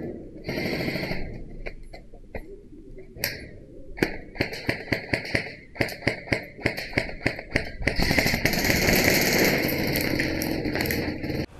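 Airsoft guns firing: a run of sharp shots about five a second, then a loud, dense continuous rattle and hiss lasting about three and a half seconds.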